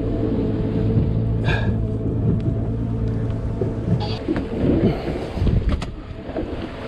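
Boat engine running steadily under way, with wind rumbling on the microphone and water noise. The engine hum gives way to rougher wind and water rumble about four seconds in, with a couple of sharp knocks near the end.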